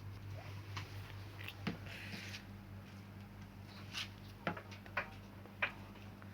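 Handling noise from setting up a repaired LCD TV and its mains plug: about six light clicks and taps and a brief rustle, over a steady low hum.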